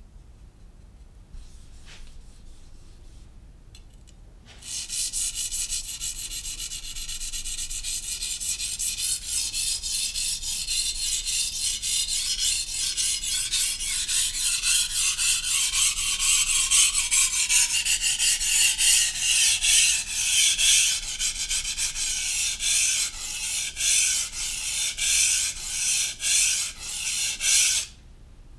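A steel knife blade being sharpened on a Naniwa Professional 600 grit whetstone: rapid, rhythmic back-and-forth scraping strokes of steel on stone. They start about four seconds in and stop abruptly near the end.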